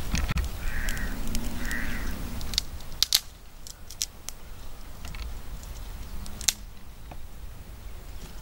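A crow cawing twice, about one and two seconds in, over a low rumble, followed by a few sharp clicks.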